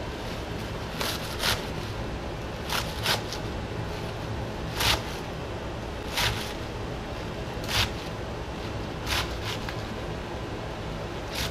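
Chef's knife slicing through a rolled bunch of leafy greens onto a wooden cutting board: about nine crisp cuts, spaced irregularly a second or so apart, some in quick pairs.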